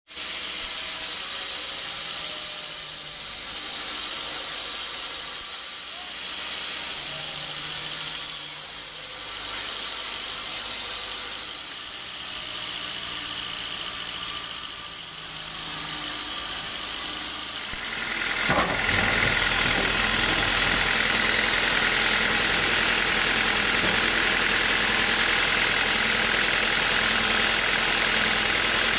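Band sawmill running and sawing a teak log: a steady mechanical noise that swells and falls about every three seconds. About two-thirds of the way in it changes abruptly to a louder, steadier whine and hiss.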